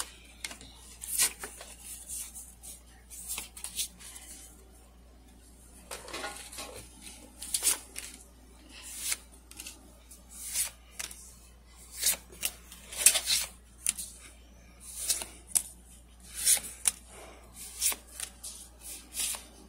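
Pokémon trading cards being flipped through in the hand, one card sliding off the stack after another: short, irregular swishes and flicks, roughly one every second.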